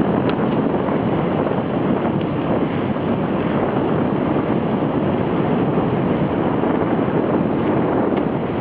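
Wind buffeting the microphone of a camera on a moving bicycle: a steady rushing rumble, with a few faint ticks.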